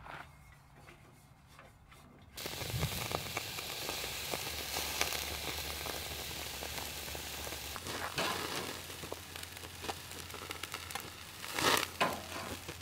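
Hamburger patties sizzling on the grate of a small portable propane grill, the sizzle starting suddenly a couple of seconds in. A louder scrape of a metal spatula on the grate near the end.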